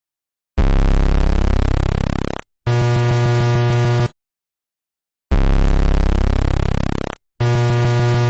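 Electronic emergency alert alarm tones. A harsh buzzing tone sounds for about two seconds and fades out, then a steady buzzing tone follows for about a second and a half after a brief break. The pair repeats after a second of silence.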